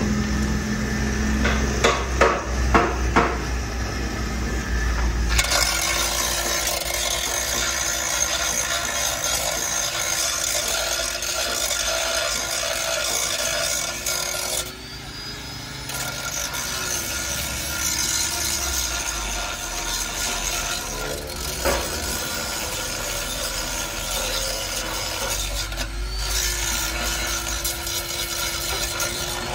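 Handheld electric angle grinder cutting the old steel exhaust pipe under a truck: a harsh grinding rasp over a steady motor whine, starting about five seconds in after a few knocks, with a short break about halfway.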